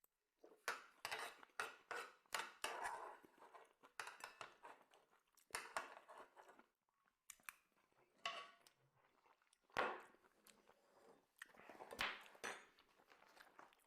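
A person chewing food close to the microphone: irregular clusters of short clicky chewing noises with brief pauses between them.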